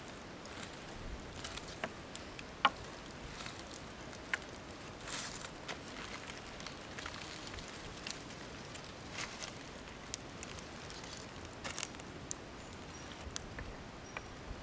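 Campfire wood embers crackling under fish roasting on sticks: sparse, irregular sharp pops and short hissy spurts over a faint steady hiss.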